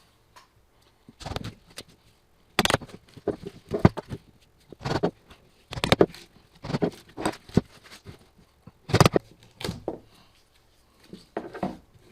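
A series of irregular knocks and clunks, about a dozen, from objects being handled and set down on a workbench, the loudest a little past two and a half seconds in and again about nine seconds in.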